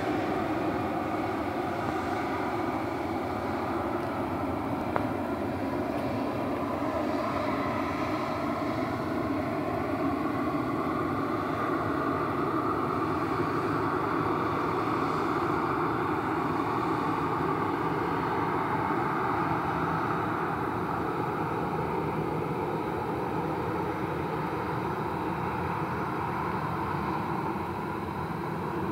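Jet engines of a Thai Lion Air airliner running steadily at low power as it moves along the runway before take-off, heard from a distance as an even engine noise that swells slightly midway.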